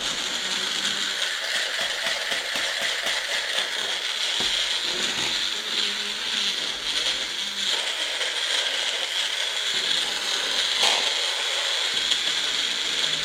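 Bullet-style high-speed blender running steadily, pureeing lemons, onion, garlic, horseradish and honey into a thick mixture. It starts abruptly and holds an even, loud, high-pitched whir.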